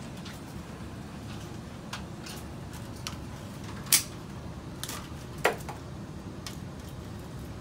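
Cat6 network cables being handled at a rack with a plastic cable manager: scattered light clicks and taps, with two sharper clicks about four and five and a half seconds in, over a steady low hum.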